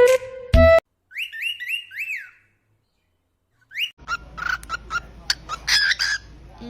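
Cockatiel chirping and whistling: a quick run of four rise-and-fall whistled chirps, then a single rising whistle, then a string of short sharp chirps over room noise.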